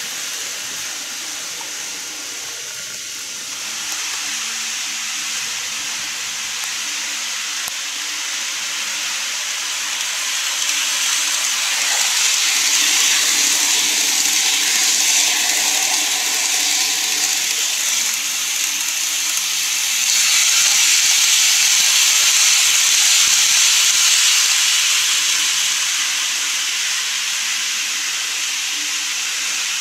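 N-gauge model electric trains running on plastic track: a steady rushing whir of wheels and motors that swells twice, about 11 seconds in and again about 20 seconds in.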